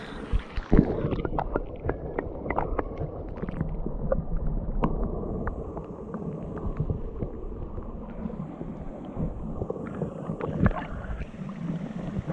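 Muffled water sloshing and gurgling around someone wading and working in a shallow stream, with many small knocks and clicks scattered through it.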